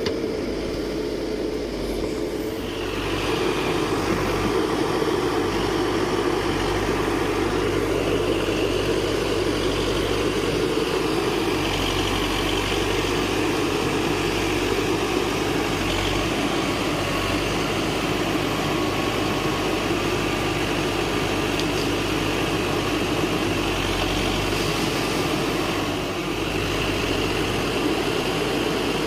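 Escorts Digmax II backhoe loader's diesel engine running steadily. It picks up about three seconds in and then holds there.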